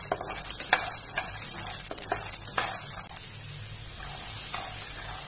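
Soaked black chickpeas sizzling in a little hot oil in a nonstick pan as a slotted spatula stirs them, with scattered clicks and scrapes for the first three seconds, then a steady sizzle. The chickpeas are being roasted until crisp.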